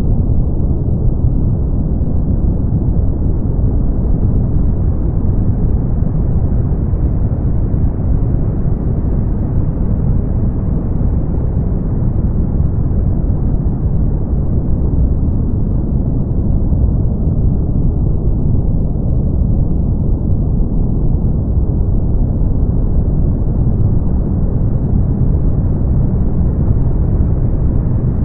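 Brown noise: a steady, deep rumbling hiss with its energy in the low end and nothing above the upper midrange, unchanging throughout.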